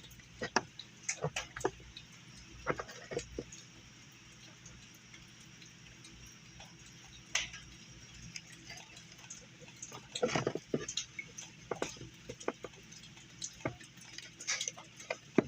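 Irregular light clicks and knocks of small objects being handled, with a cluster of sharper knocks about ten seconds in and again near the end.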